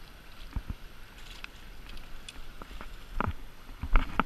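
Running river water with a few sharp splashes and knocks, the loudest about three and four seconds in, as a hooked rainbow trout thrashes at the surface near the landing net.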